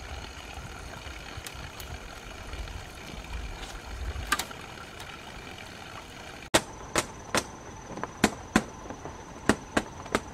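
A low rumble with a few faint clicks. About two-thirds of the way in it gives way abruptly to a run of sharp knocks or taps, roughly two or three a second at uneven spacing, over a faint steady high tone.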